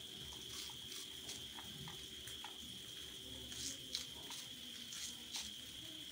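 Small kitchen knife slicing finely through a bunch of elephant foot yam leaf stalks held in the hand: faint, irregular little cuts, about two or three a second, over a steady high-pitched whine.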